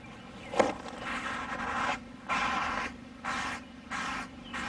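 Aerosol spray-paint can sprayed in four or five short hissing bursts, after a sharp click about half a second in.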